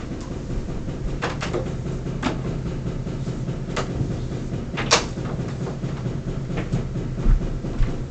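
Bissell PowerForce bagless upright vacuum (model 6582) running steadily, with a handful of sharp clicks and knocks over it, the loudest about five seconds in.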